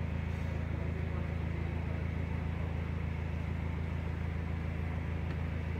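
Steady, continuous low mechanical hum with no change in pitch or level.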